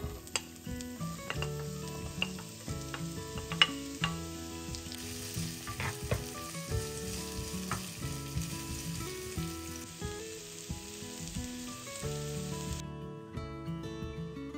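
Food sizzling in hot oil in a frying pan, with sharp clicks of a utensil stirring it against the pan. The sizzle cuts off near the end. Acoustic guitar music plays underneath.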